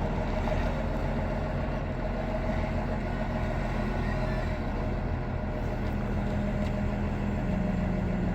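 Heavy machinery engine running steadily, a low even hum, with one tone growing stronger about six seconds in.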